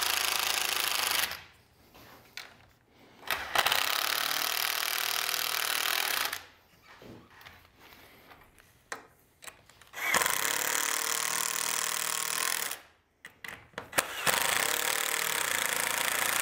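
Cordless impact driver hammering screws through a foot brace track into a wooden kayak gunwale, in four runs of two to three seconds with short pauses between; the first run stops about a second in.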